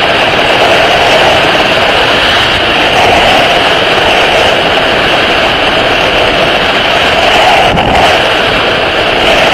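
Loud, steady wind roar from freefall airflow buffeting the skydiver's camera microphone.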